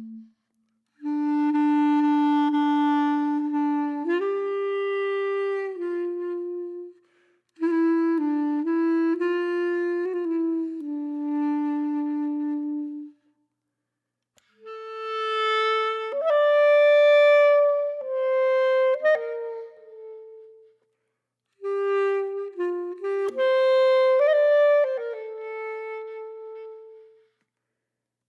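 Background music: a solo woodwind melody of held notes that step up and down, played in phrases of several seconds with brief silent gaps between them.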